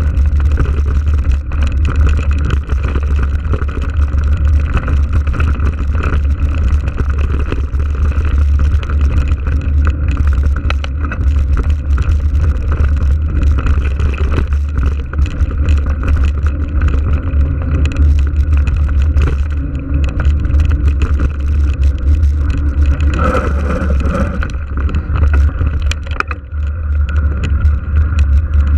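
Mountain-bike ride heard through a bike-mounted action camera: steady wind buffeting the microphone over the rumble of tyres rolling on a dirt and gravel track, with frequent small clicks and rattles from the bike on the rough surface.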